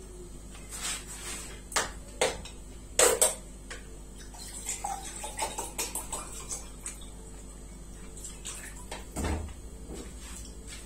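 A person eating pounded yam and egusi soup by hand: a few sharp clicks and knocks, then a run of small chewing and lip-smacking clicks, and a soft thump near the end, over a steady low hum.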